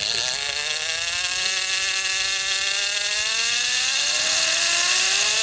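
Big-game fishing reel's drag screaming as line is pulled off by a hooked shark: a steady, high-pitched whirring buzz whose pitch slowly drifts up and down with the speed of the run.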